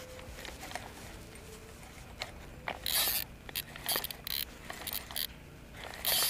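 Pocket Fisherman compact rod's reel being cranked to bring in a hooked fish. Its small handle and gears make a quiet mechanical clicking and rattle, with a few short, sharper bursts about three, four and six seconds in.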